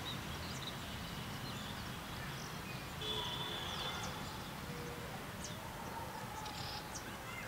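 Steady open-air background noise with faint, scattered bird chirps and a brief high whistle about three seconds in.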